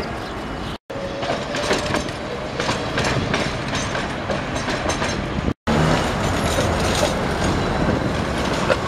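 City trams running on street track: steel wheels clatter and click over the rail joints, over a steady hum of traffic. The sound cuts out abruptly twice, each time for a moment.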